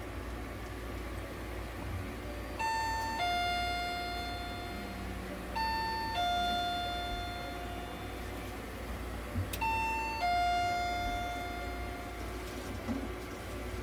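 Electronic two-note ding-dong chime sounding three times, a short higher note dropping to a lower note that rings out and fades over about two seconds, over a steady low hum.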